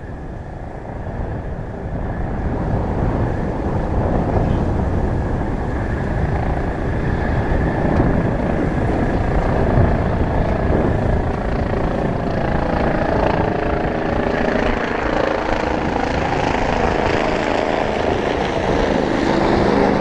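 Jet engine noise from JASDF F-4EJ Kai Phantom II fighters, each powered by two J79 turbojets, landing and rolling out on the runway. It is a loud, steady rumble that builds over the first few seconds and then holds, with steady tones coming in over the last third. Wind buffets the microphone.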